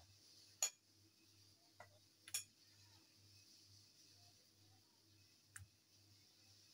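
Near silence with a few faint, separate clicks and taps as marinated mutton chops are set down and pressed into a nonstick frying pan by hand.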